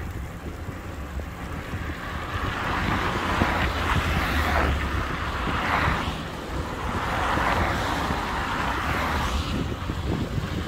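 Wind buffeting the microphone of a camera on a moving e-bike: a steady low rumble with several swells of rushing hiss that rise and fall.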